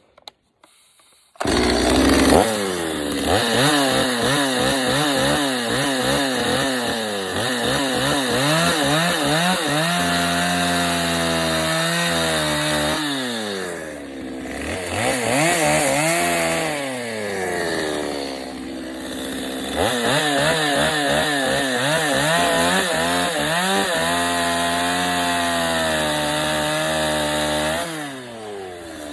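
Chainsaw starting about a second and a half in and running at high revs, cutting into a wooden log to rough out a carved bear's nose, its pitch wavering under load. It eases off twice midway and throttles down near the end.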